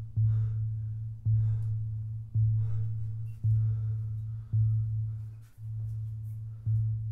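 Film score: a low synthesized tone pulsing about once a second, each pulse starting sharply and fading before the next.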